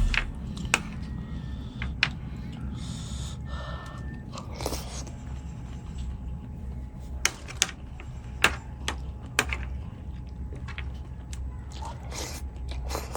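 Eating sounds: scattered sharp clicks of utensils against a dish, with a few short breaths or sniffs, over a steady low rumble.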